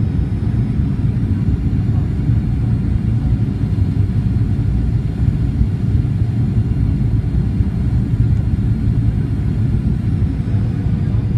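Cabin noise of a Boeing 737-800 descending on approach, heard from a window seat over the wing: a steady low rumble of its CFM56-7B engines and airflow, with a faint steady high whine above it.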